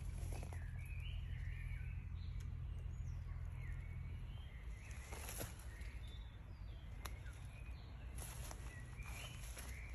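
Woodland birds singing in short chirping phrases over a low rumble that fades out about four seconds in, with a few brief rustles.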